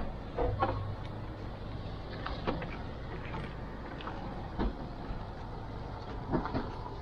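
Boat engine running steadily at a low hum, with occasional short knocks and clatter.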